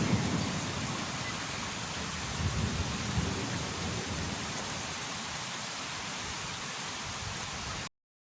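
Steady heavy rain with low thunder rumbling at the start and again about two and a half seconds in. The sound cuts off suddenly near the end.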